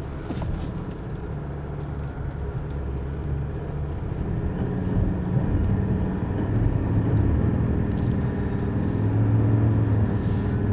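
Ford Ranger's 3.2-litre five-cylinder turbodiesel pulling at low revs in low-range second gear with the differential locked, labouring up a steep climb. It grows louder from about four seconds in.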